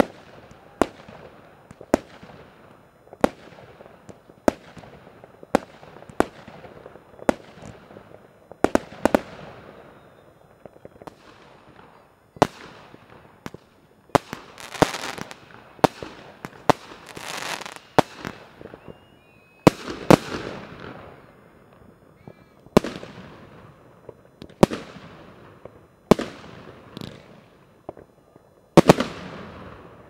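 Aerial firework shells bursting overhead one after another, each sharp bang trailing off in a rolling echo. There are about twenty bangs, roughly one a second, with longer stretches of crackle in the middle.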